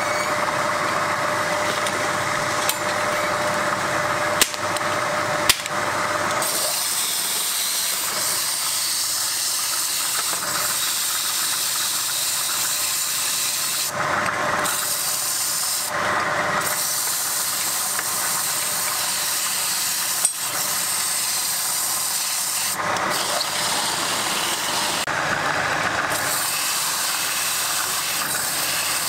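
Wood lathe spinning a wooden goblet while a hand-held turning tool scrapes the inside of the cup, a steady hissing scrape. There are a few sharp clicks in the first six seconds, after which the hiss turns higher. Near the end a hand is pressed against the spinning wood, as in hand sanding.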